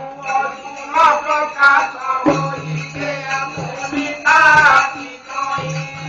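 Traditional Indian folk music accompanying a dance-drama: a wavering melody line over a steady low drone and jingling percussion. It is recorded through an old keypad phone's low-quality microphone.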